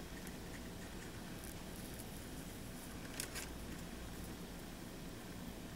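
Faint handling sounds of thin Mylar film and metal tweezers: a few soft crinkles and clicks, the clearest pair about three seconds in, over a low steady room hum.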